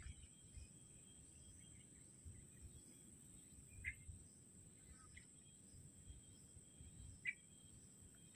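Near-silent outdoor ambience: a bird chirps briefly three times, a few seconds apart, over a steady high-pitched whine.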